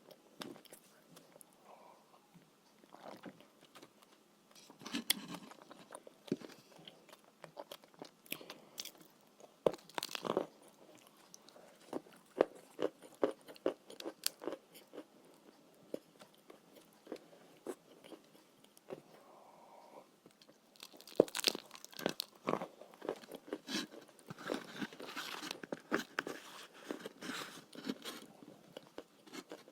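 Chalk being bitten and chewed with a paste: irregular crisp crunches and clicks that come in bursts, with short quieter pauses between mouthfuls.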